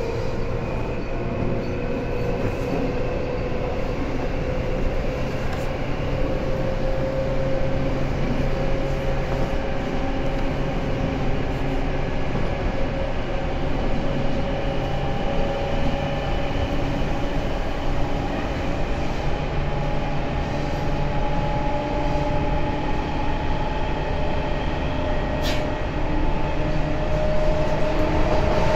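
Running sound of a Tobu 9000 series electric train, whose chopper-controlled traction motors give a whine that climbs slowly in pitch as the train gathers speed, over the steady rumble of wheels on rail. One short click sounds near the end.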